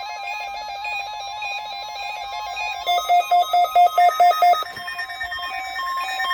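Several NOAA weather radio receivers sounding their alert alarms, set off by a Required Weekly Test broadcast: a fast warbling electronic tone, a run of about seven quick beeps about three seconds in, and further beeping alarms joining over a steady tone.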